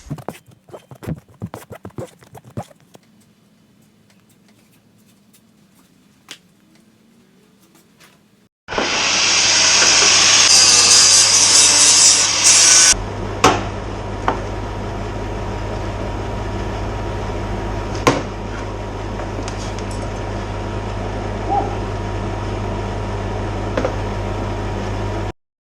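A few scattered knocks and taps, then a power tool starts suddenly about nine seconds in. It is loudest for the first four seconds or so, then runs steadily with a low hum, and it stops abruptly near the end.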